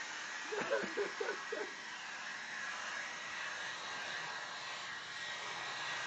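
Hair dryer running steadily, a hiss of blowing air with a faint high whine. About half a second in, four or five short vocal sounds, like stifled laughter, cut through it.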